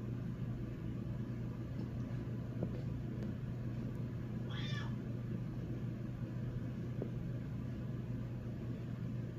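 Scottish Fold cat giving one short, high meow about four and a half seconds in, calling to wake someone, over a steady low hum.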